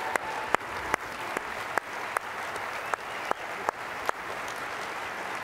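Audience applauding, with one person clapping close to the lectern microphone: sharp, evenly spaced claps about two and a half a second that stop about four seconds in.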